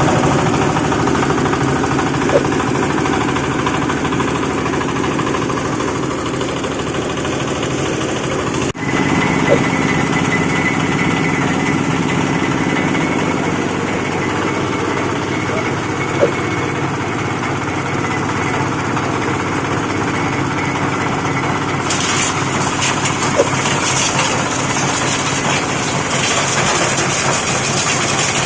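8 HP diesel engine running steadily, driving a livestock manure grinding machine. A brighter hissing noise joins in about 22 seconds in.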